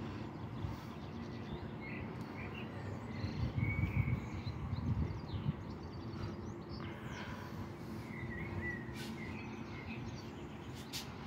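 Outdoor ambience: small birds chirping again and again over a steady low rumble, which swells for a moment about four seconds in.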